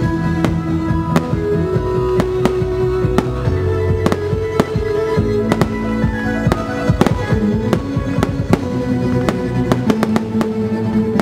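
Fireworks going off in many sharp bangs and cracks, two or three a second at irregular spacing, over music with long held notes.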